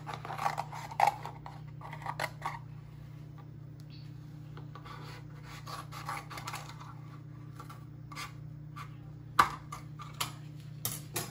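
Rasping, scraping strokes of a blade cutting into a paperboard coconut-milk carton, coming in irregular bursts, with a few sharp knocks near the end.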